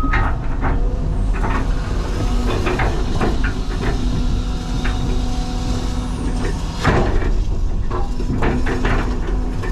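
CAT 323 excavator working: its diesel engine runs steadily with a deep rumble, with scattered knocks and clanks and one louder clank about seven seconds in.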